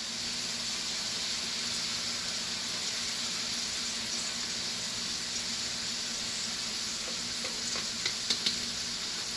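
Chicken and broccoli stir-fry sizzling steadily in a frying pan as cornstarch is poured in. A few light taps near the end.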